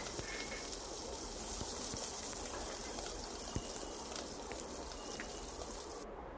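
Hot oil sizzling softly around freshly added ginger, garlic and chilli paste in a pot, a steady hiss with a few faint pops.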